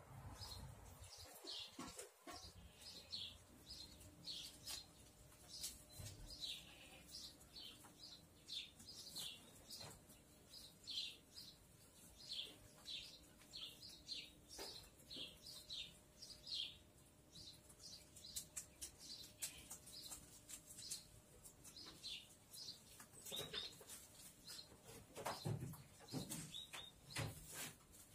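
Small birds chirping faintly and repeatedly, short high falling chirps about once or twice a second. A few sharp knocks and rustles come near the end.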